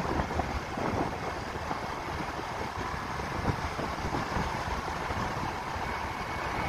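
Wind buffeting the microphone over the steady rumble of a vehicle travelling along a road.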